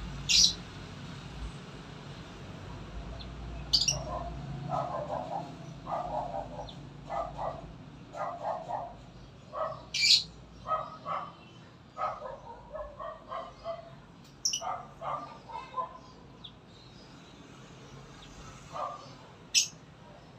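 Animal calls: a few sharp, very short high chirps spread a few seconds apart, and a run of repeated lower calls, about one or two a second, through the middle.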